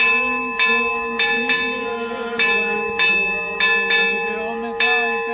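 Church bells ringing festively, struck about twice a second in an uneven pattern, each stroke leaving a long ringing hum. Voices can be heard faintly underneath.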